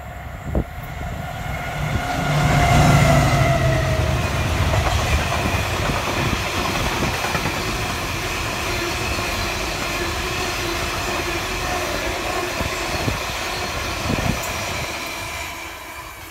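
Class 70 diesel locomotive hauling an engineers' train of wagons passing close by. The locomotive is loudest about two to four seconds in, its tones falling in pitch as it goes by. Then comes a steady rumble of the wagons with scattered knocks from the wheels, fading near the end.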